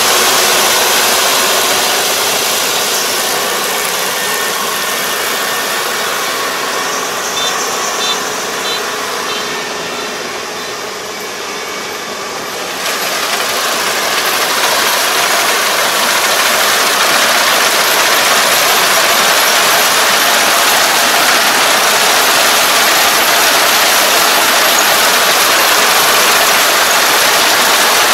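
Kubota four-row combine harvester running while cutting rice: a steady, loud, hissing machine noise of engine and threshing. It fades somewhat about ten seconds in and grows louder again as the machine comes back close.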